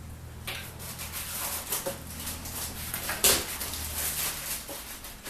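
Irregular rubbing, scraping and knocking of packing material being handled and pulled from around the saw, with one sharper knock a little past the middle.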